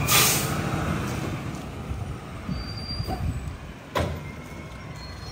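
Mack MRU rear-loader garbage truck's air brakes releasing with a sharp hiss, then its engine rumbling as the truck pulls ahead and fades off. A single knock about four seconds in.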